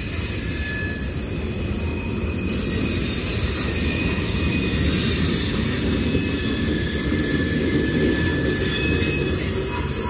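CSX freight train's covered hopper cars and a tank car rolling past on the rails, a steady noise of steel wheels on track with faint high-pitched wheel squeals coming and going.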